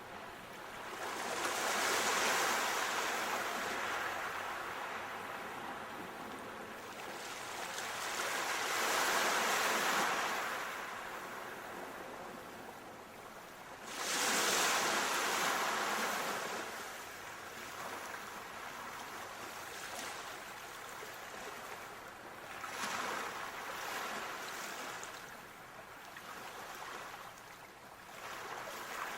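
Sea waves washing ashore, the surf swelling and fading in slow surges every several seconds, one wave breaking more suddenly about halfway through.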